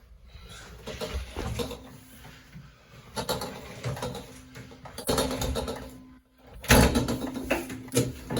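A refrigerator on an appliance dolly being tilted and eased down stairs: irregular clunks and scrapes of the dolly and load on the steps, getting louder in the second half.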